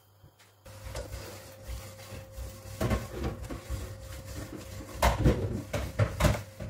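Kitchen knife chopping pumpkin peel on a plastic cutting board: a few knocks about 3 s in, then a run of quick knocks from about 5 to 6.5 s, over a steady low hum.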